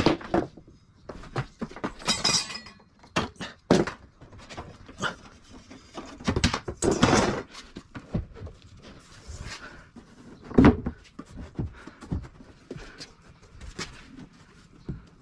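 Irregular knocks, thuds and short scraping noises from handling and fitting a sink unit, with the loudest thud about ten and a half seconds in.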